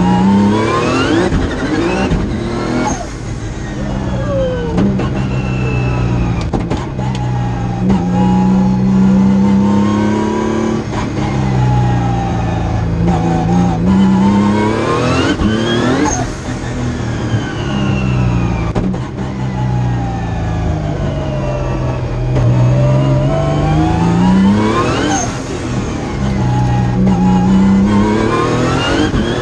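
Highly modified Nissan March race car's engine heard from inside the cabin, its revs climbing hard and dropping away several times as the car accelerates and slows along the track.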